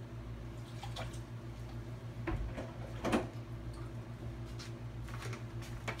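A few light knocks and handling sounds around a plastic tub of dye water, with faint watery sounds, over a steady low electrical hum. The loudest knocks come in the middle, about a second apart.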